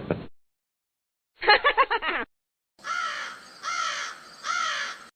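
A crow cawing three times in a row, each caw drawn-out and arching in pitch, after a short voice-like sound about a second and a half in.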